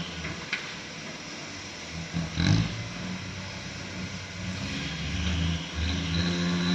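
Heavy diesel engine running. It eases to a quieter, lower note, then picks up again near the end, with a single knock about two and a half seconds in.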